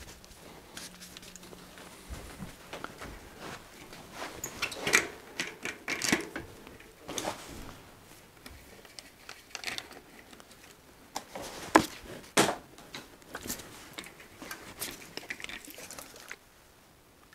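Irregular clicks, light knocks and rustling of hands working on a bicycle's front suspension fork and wheel hub: a rag wiping the fork and small metal parts being handled, with one sharper click about two-thirds of the way through.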